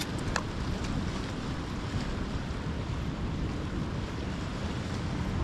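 Steady rush of wind buffeting the microphone and sea surf washing against the rocks. There are a couple of sharp handling clicks right at the start as the camera is set down.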